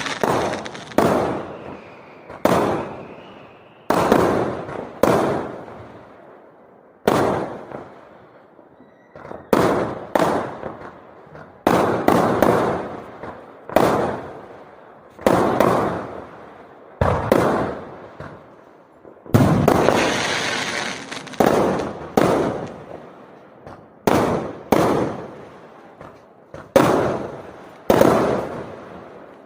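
Fireworks going off in a string of loud bangs at irregular intervals, about one every second or two, each dying away over about a second. A few have a longer crackling tail, notably one about twenty seconds in.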